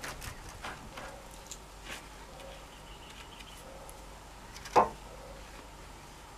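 Faint taps and scrapes of hands working a pointed wooden stake and a galvanized steel post-anchor bracket in dry dirt, with one sharp knock about three-quarters of the way through.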